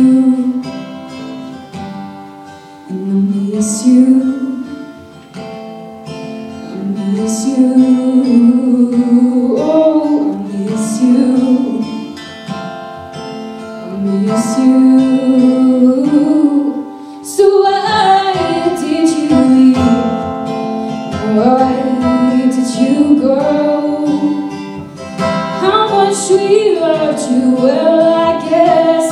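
A woman singing a slow song to her own acoustic guitar accompaniment, performed live and recorded from among the audience.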